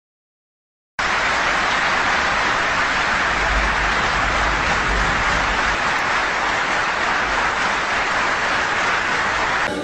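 Dense, steady applause from a large assembly, many hands clapping at once. It starts abruptly about a second in and cuts off near the end.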